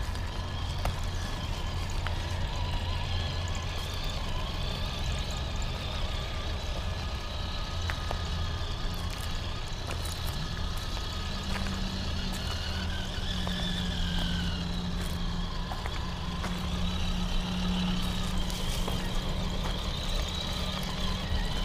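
Traxxas TRX-4 Sport RC crawler's electric motor and gear drive whining as it crawls, the whine rising and falling in pitch with the throttle. Occasional light clicks and a steady low rumble lie underneath.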